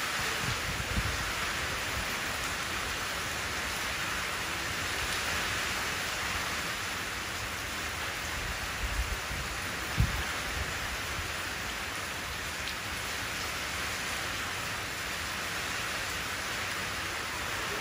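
Steady rain falling into a shallow puddle: an even patter and hiss of drops on water. A few brief low thumps come around the middle, the loudest about ten seconds in.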